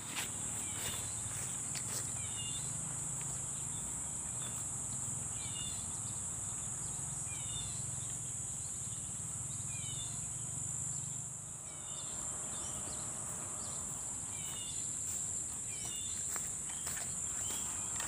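A steady high-pitched insect drone runs throughout. Over it a bird repeats short chirps every second or two.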